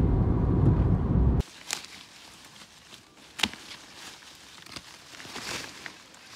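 Steady low road and engine rumble inside a moving car, which cuts off abruptly about a second and a half in. It is followed by rustling of blackberry canes and leaves as a gloved hand pulls and trims them, with a few sharp clicks.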